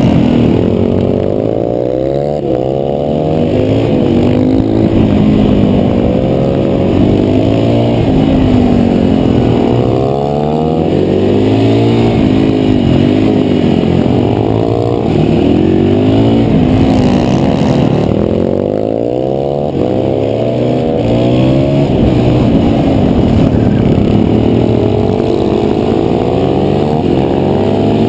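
KTM 525 supermoto's single-cylinder four-stroke engine under hard race riding, heard from on board: the revs rise and fall over and over as the rider accelerates, shifts and brakes through the corners.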